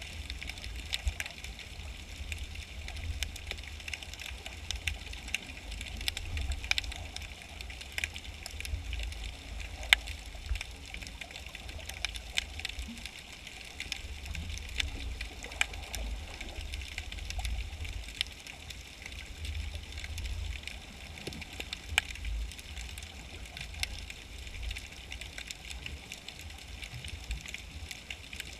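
Underwater sound heard through a GoPro's waterproof housing. A steady low rumble of moving water runs under a hiss, with scattered sharp clicks and crackles, two of them louder than the rest.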